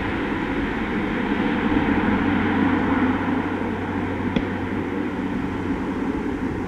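Airbus A400M Atlas's four TP400 turboprop engines, with their eight-bladed propellers, running at takeoff power as the aircraft climbs away: a steady dense drone with a low hum underneath. A brief click is heard a little past the middle.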